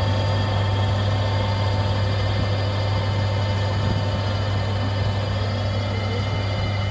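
Tractor diesel engine running steadily under load as it pulls a seed drill, a continuous deep hum.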